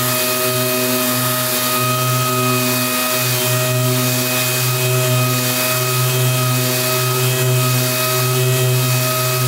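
Air-powered random-orbital sander running against a clear-coated carbon-fibre panel, giving the lacquer a last light scuff sand before the next coat. It makes a steady whirring hum with a hiss on top, which dips briefly about two to three seconds in.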